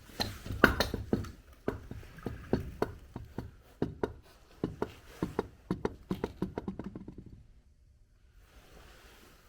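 Irregular metallic knocks and taps of hand tools working on a rear differential, several a second for about seven seconds, then stopping.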